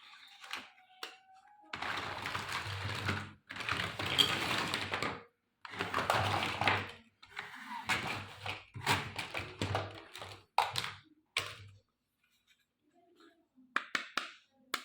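Plastic toy pieces and packaging being handled: several stretches of rustling and clattering, then a run of quick clicks and taps, a pause, and a few more clicks near the end.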